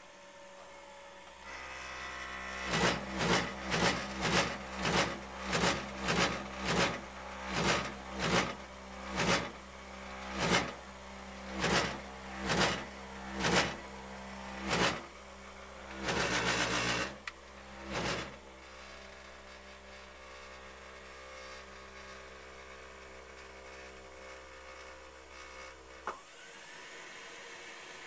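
Takagi T-K3 tankless gas water heater running: a steady hum with about twenty loud, sharp pulses over it, about two a second at first and slowing to about one a second. A longer burst and one more pulse follow, then the hum cuts off with a click near the end.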